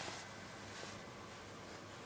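Cotton fabric of an M43 field jacket rustling as a hand turns back the collar: three brief soft swishes, at the start, about halfway and near the end, over a steady hiss.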